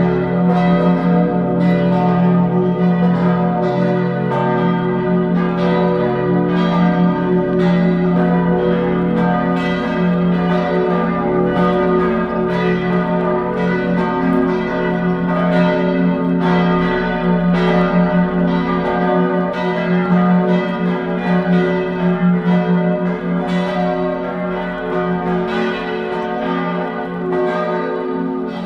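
Church bells swinging together in a continuous peal, their strikes overlapping into steady ringing. It is rung to mark the start of a Confirmation service.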